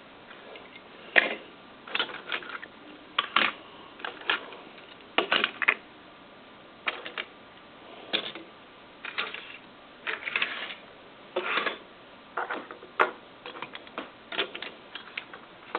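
Small die-cast metal toy cars being handled and set down, giving irregular sharp clicks and clacks, sometimes a few in quick succession.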